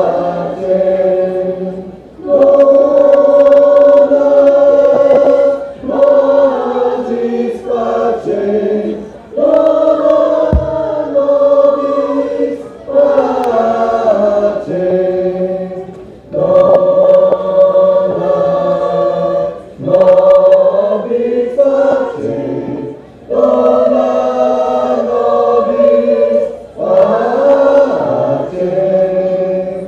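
Choir singing in sustained chords, phrase after phrase of two to four seconds each with brief breaths between them.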